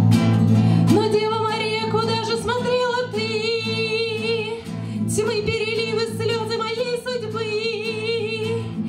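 Woman singing two long, held phrases with wide vibrato, accompanied by a strummed nylon-string classical guitar.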